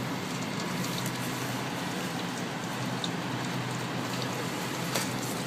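Steady outdoor snowstorm ambience: an even hiss with faint scattered ticks.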